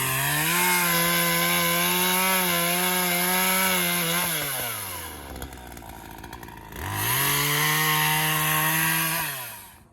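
Chainsaw revved to full throttle and held while cutting through a fallen tree trunk, then let back to idle. It is revved up and cut again a few seconds later, for two cuts in all.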